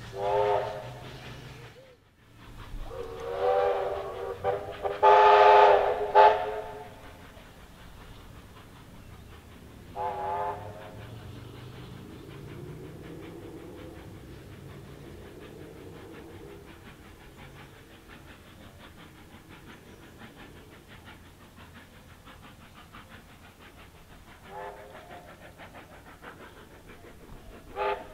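NSWGR 32-class steam locomotive's whistle blown in a series of blasts: a short one at the start, two longer, louder ones a few seconds in, another about ten seconds in, and short toots near the end. Quieter steady train noise lies between the blasts.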